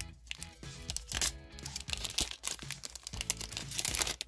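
A booster pack's foil wrapper being torn open and crinkled in the hands, in a series of short rustling rips, over background music.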